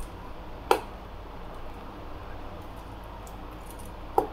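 Plastic lid being pressed onto a plastic food container: two sharp clicks, one under a second in and one near the end, with faint handling ticks between.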